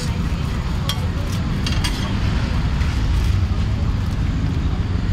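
Street-market background noise: a steady low rumble with faint voices and a few light clicks in the first couple of seconds.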